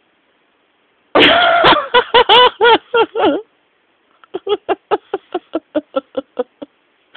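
High-pitched laughter in two bouts. A loud burst of about six quick pulses comes about a second in, then after a short pause a quieter, even run of about a dozen short 'ha' pulses.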